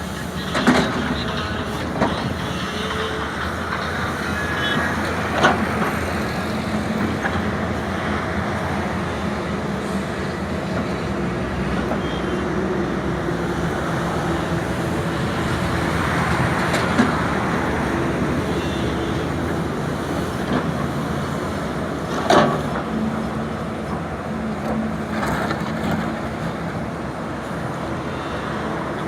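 Sany SY210 excavator's diesel engine running steadily under working load, with several sharp knocks about 1, 2, 5.5, 17 and 22 seconds in.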